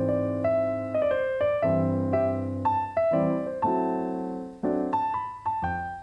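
Background music: a gentle piano-like keyboard tune, with notes and chords struck one after another and left to ring and fade.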